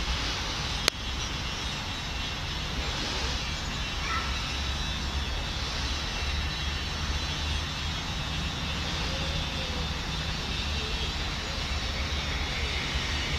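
Steady outdoor background noise, a low rumble under an even hiss, with one sharp click about a second in.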